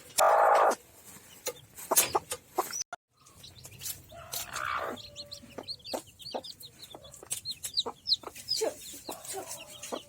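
Hen clucking while chicks peep in a rapid string of short, high cheeps, among scattered sharp clicks and knocks. A loud noisy burst opens it, and the sound drops out briefly about three seconds in.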